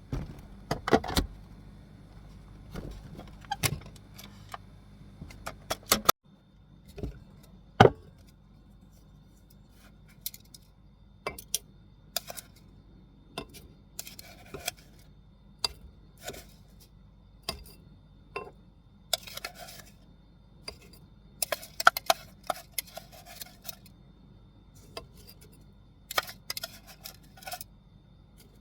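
Small hard objects being handled and set down: irregular light clicks, clinks and knocks, some in quick clusters.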